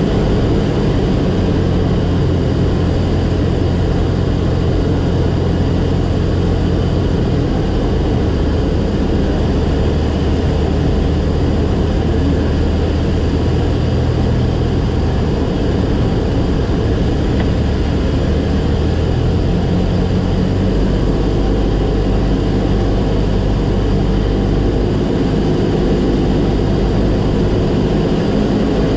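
Light single-engine propeller airplane's piston engine and propeller droning steadily in flight on approach to a runway. About two-thirds of the way through the engine note drops lower, as when the power is reduced on final approach.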